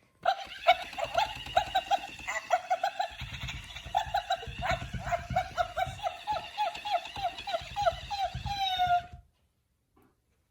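Hyper Pet Doggie Pal Unicorn plush toy squeaking in a quick, uneven run of short squeaks, about three or four a second, ending in one longer falling note just before it stops.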